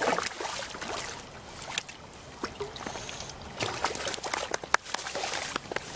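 Water splashing and dripping in quick, irregular spatters as a small carp thrashes at the surface while it is being landed.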